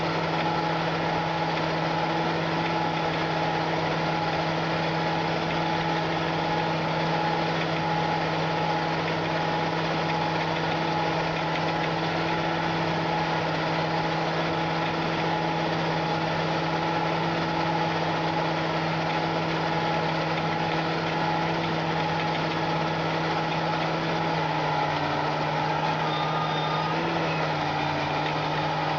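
John Deere 8260R tractor's six-cylinder diesel engine running steadily under load, pulling a disc harrow through the soil. The engine note drops slightly about 25 seconds in.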